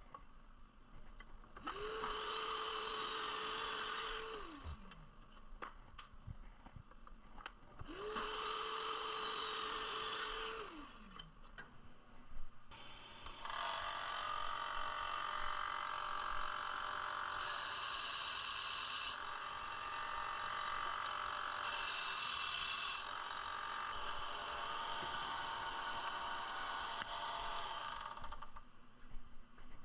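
An electric power tool runs twice for about three seconds each time, its motor spinning up to a steady whine and winding down as it coasts to a stop. Then a longer run of about fifteen seconds follows, with two harsher passages near the middle, consistent with cutting wood.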